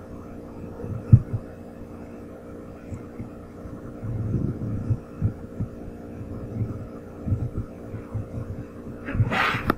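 Steady electrical hum with scattered low thuds, the sharpest about a second in, and a short burst of noise near the end.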